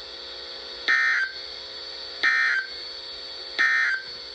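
NOAA Weather Radio sending its SAME end-of-message code: three short, buzzy digital data bursts about 1.4 seconds apart, signalling that the test message is over. Between the bursts the receiver gives a steady hum and hiss.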